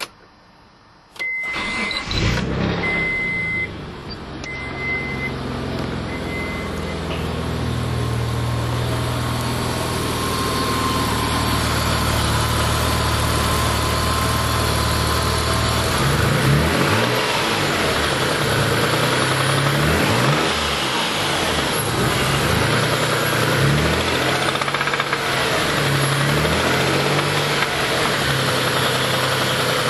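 A Mitsubishi 3000GT / Dodge Stealth twin-turbo 3.0-litre V6 starts about a second in and settles to idle. From about halfway on it is blipped up and down several times. It runs with the rod knock of a spun #4 connecting-rod bearing.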